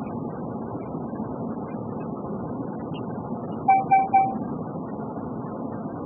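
Steady road and engine noise inside a car cruising on a highway. About four seconds in, three short, identical beeps come in quick succession.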